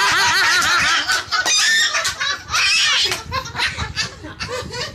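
Loud laughter, a quick run of high-pitched 'ha-ha' pulses, strongest in the first couple of seconds and fading toward the end.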